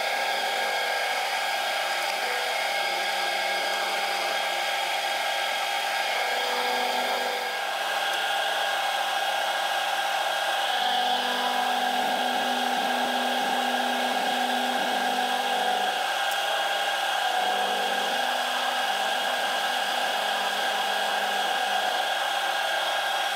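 Milling machine running with a dovetail cutter cutting a tooth into a ratchet wheel under flood coolant: a steady machine whine of several tones, with a lower hum joining in for a few seconds midway.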